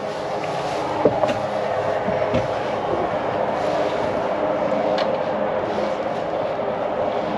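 Steady mechanical hum and rushing noise, with a few sharp knocks or footfalls about a second in and again near five seconds.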